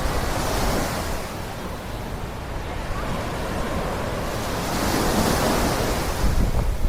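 Surf washing up on the beach, swelling twice, with wind buffeting the microphone.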